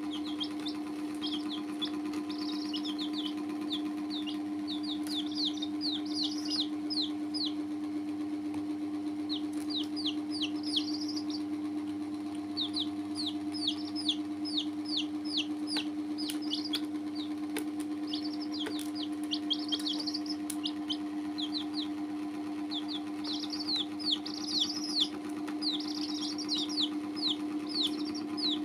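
Domestic chicken chicks peeping: runs of short, high, falling peeps, coming in bursts through the whole stretch, over a steady low hum.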